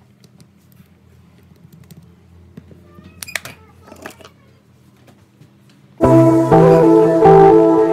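Quiet room sound with a few light clicks and taps about three to four seconds in, from hand tools and a plastic toner cartridge being handled on a workbench. Background music starts abruptly about six seconds in.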